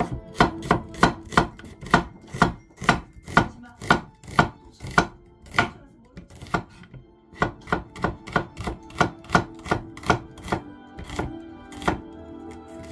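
Santoku knife slicing an onion on a wooden cutting board: a steady run of sharp chops, about two to three a second, with a short pause about six seconds in.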